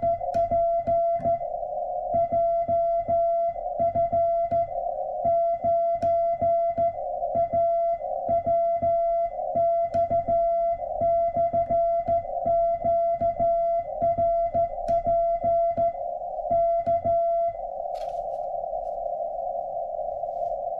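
Morse code sent by hand on a straight key: the homemade transceiver's sidetone, a steady mid-pitched beep keyed in dots and dashes, with a click of the key at each stroke. About 17 seconds in the keying stops and only the receiver's narrow band of hiss remains.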